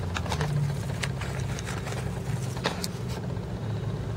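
A steady low mechanical hum, with a few small clicks and scrapes as a handheld Geiger counter is set down on gravel and settled into place.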